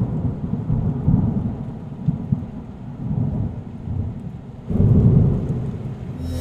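Low rolling thunder rumble, swelling louder a little under five seconds in.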